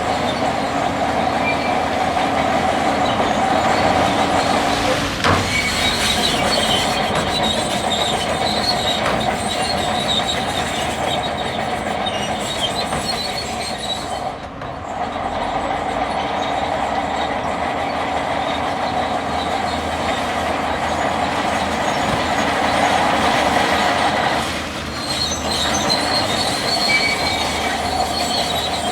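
Bulldozer working: its engine and steel crawler tracks run steadily, with faint high squeals over the noise. The sound eases off briefly about halfway through and again near the end.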